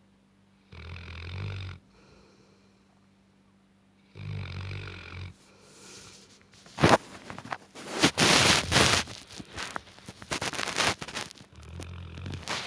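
Nine-month-old Tibetan mastiff snoring in its sleep: three low snores, each about a second long. Between the second and third there is loud rustling with a sharp knock, louder than the snores.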